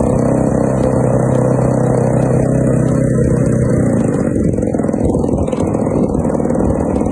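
Propeller engine of a large radio-controlled aerobatic plane running on the ground just after starting, propeller spinning. Its note is steady, then changes about four seconds in.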